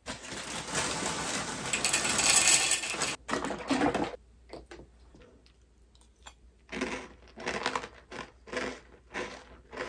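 Small hard chocolate Timbits cereal balls poured from a plastic bag into a bowl: a dense rattling for about three seconds, then a second, shorter pour. After a pause, several short crunching sounds near the end as the cereal is chewed.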